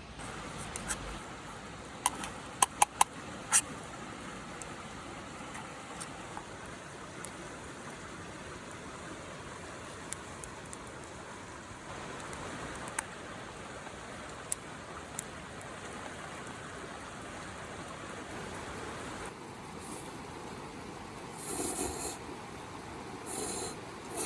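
Wood fire crackling in a small fire pit: a steady hiss with sharp pops, a quick cluster of four about two to three seconds in and single pops now and then, and two brief louder rustles near the end.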